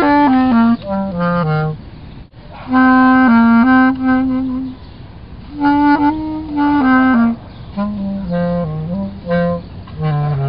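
An old bass clarinet in need of repair, played solo: short phrases of separate notes, mostly stepping downward, with brief pauses between phrases.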